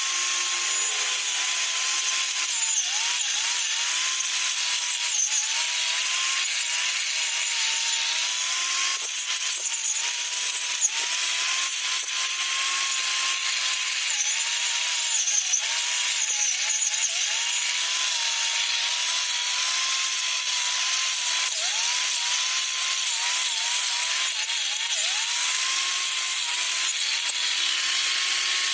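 Homemade grass cutter built from a used electric angle grinder, running at high speed with a steady whine over a hiss. Its pitch dips briefly and recovers again and again.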